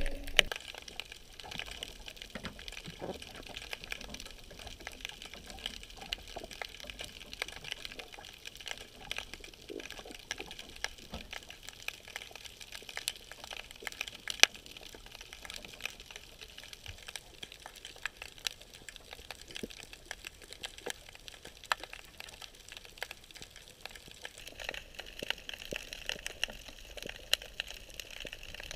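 Underwater ambience picked up by a GoPro in its housing on the seabed: a faint steady hiss scattered with frequent sharp clicks and crackles.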